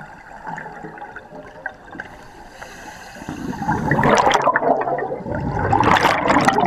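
Underwater bubbling and water movement heard through a waterproof camera housing. It is fainter at first and grows into loud, churning bubbling about three seconds in, as a mass of air bubbles rushes past the lens.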